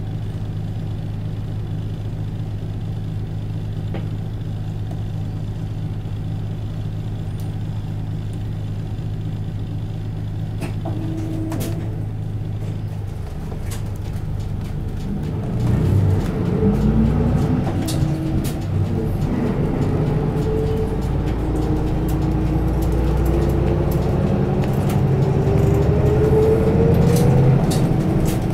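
Isuzu Erga Mio city bus's four-cylinder diesel engine idling steadily while the bus stands, heard from inside the cabin, with a few clicks about eleven seconds in. About halfway through the bus pulls away: the engine and drivetrain grow louder and a whine climbs steadily in pitch as it accelerates.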